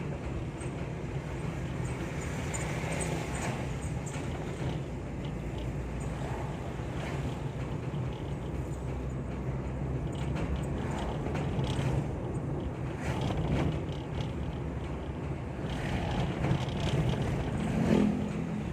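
A vehicle on the move: a steady low engine and road drone with scattered short knocks and rattles, a few louder ones near the end.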